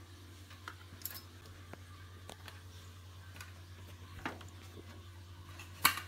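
Light clicks and taps of cables being handled inside a desktop PC case: about five scattered clicks, the sharpest near the end, over a steady low hum.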